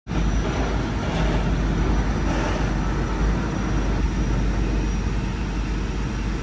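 Heavy truck engine running steadily: a low, even rumble.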